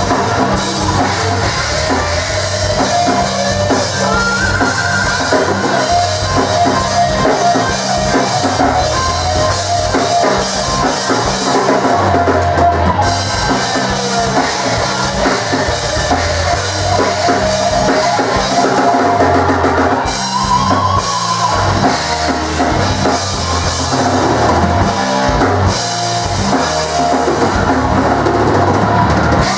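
Thrash metal band playing an instrumental passage live: electric guitars, bass guitar and a full drum kit with bass drum, without vocals.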